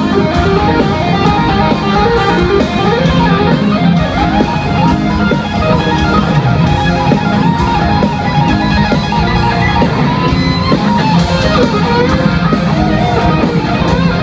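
Live hard rock band playing loudly in an arena, heard from the audience, with an electric guitar leading over a steady drum beat and bass.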